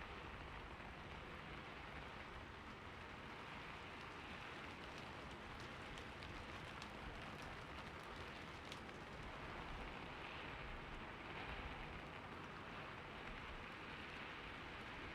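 Steady rain falling and pattering on a surface, with scattered faint drop ticks.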